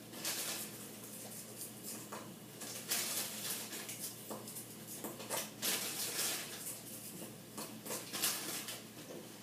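Irregular crinkling, crunching and light clinks of kitchen handling at the stove as whole Ritz crackers go into a saucepan that is coming to the boil.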